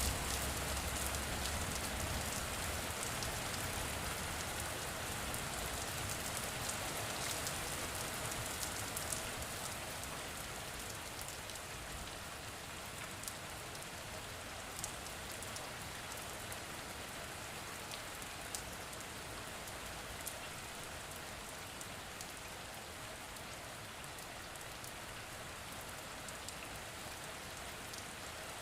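Steady rain falling: an even hiss with scattered sharper ticks of single drops. It eases slightly about a third of the way through, then holds steady.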